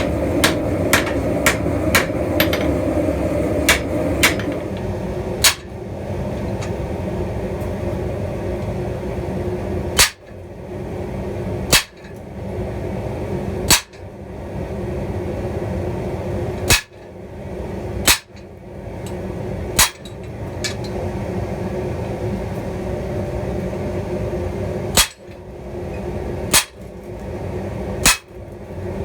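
Blacksmith's hammer striking steel on an anvil while forging a spear: a quick run of about eight blows in the first four seconds, then single blows every second or two. A steady hum runs underneath.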